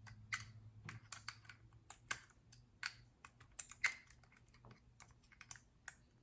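Faint, irregular small metallic clicks and ticks from a screwdriver backing out the grip screw of a Browning Medalist .22 target pistol and handling the loosened parts.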